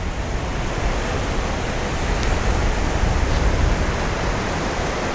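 Steady rush of wind buffeting the microphone, mixed with the wash of ocean surf.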